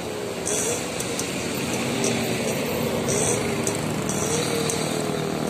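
Road traffic: an intercity coach driving past and away, with motorcycles, its engine running with a wavering tone over steady road noise. A few short high hisses sound now and then.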